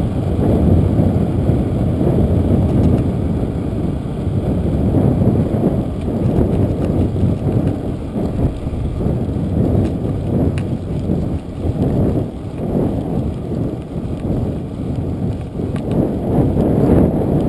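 Wind buffeting the microphone of a camera on a moving bicycle: a loud, uneven rumble that swells and dips, with the hiss of tyres rolling on asphalt beneath it.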